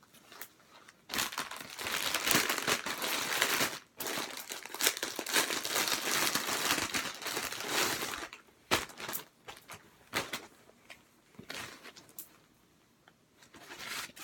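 Packaging crinkling and rustling as shirts are pulled out of an unboxed order. The crinkling runs for two long stretches with a short break about four seconds in, then thins to scattered crackles.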